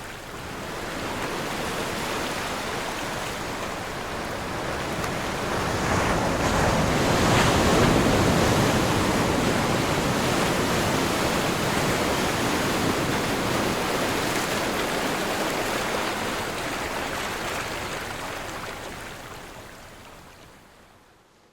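Sea waves washing onto a shore: a continuous surf rush that swells to its loudest about seven seconds in, then fades out to near silence at the end.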